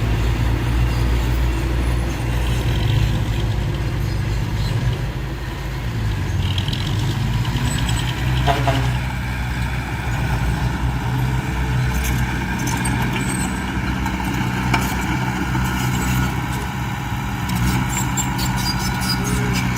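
Heavy diesel engine of an earthmoving machine running steadily with a low drone, with a short knock about eight seconds in and a run of sharp clicks near the end.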